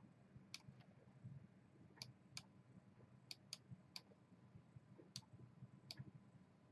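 Faint, irregular clicking of a computer mouse, about nine sharp clicks over several seconds, with near silence between them.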